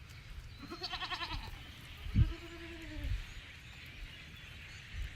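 Goats bleating twice: a wavering bleat about a second in, then a steadier one that falls away at its end. There is a short low thump just before the second bleat.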